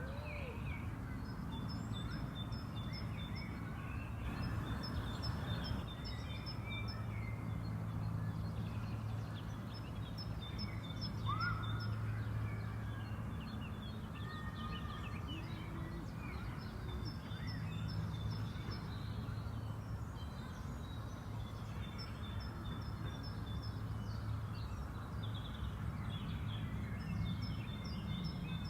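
Songbirds singing in a park: one bird repeats a short phrase of quick high notes every few seconds, with other scattered chirps and calls, over a steady low hum.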